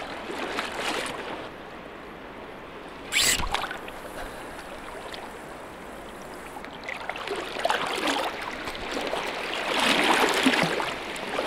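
Water sloshing and splashing around the legs of someone wading into a reservoir in a wading suit, in uneven surges that grow louder in the second half, with one short, sharp splash about three seconds in.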